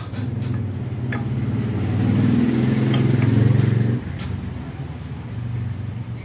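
A motor vehicle engine running, its sound building for about four seconds, then dropping off suddenly and going on more quietly.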